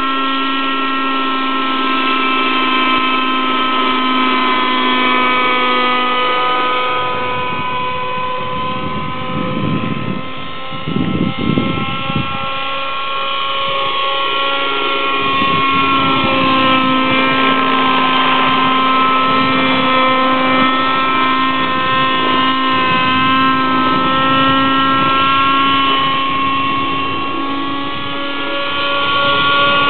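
Raptor 60 nitro RC helicopter in flight, its glow engine and rotor running with a steady high-pitched whine. About ten seconds in there are a few seconds of rushing noise, and later the pitch sags and climbs back as it manoeuvres.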